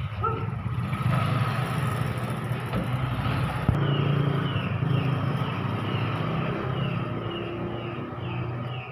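A motor running steadily with a low hum. About four seconds in there is a sharp click, followed by a run of short falling chirps, about two to three a second.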